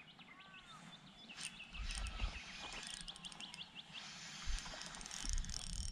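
Birds calling: short arched chirps repeated several times, with a spell of quick high twittering in the first half. A few soft low thumps come through around the middle and near the end.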